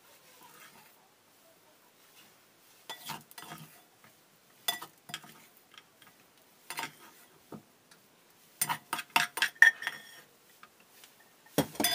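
Plastic rice paddle scraping and knocking against a rice cooker's inner pot and a stainless steel tray as cooked rice is scooped out. Scattered knocks give way to a quick run of sharp taps about two thirds of the way in, and there is a louder clatter near the end.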